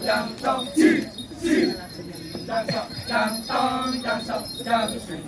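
Kecak chorus of voices chanting in short rhythmic bursts, with small bells jingling steadily throughout.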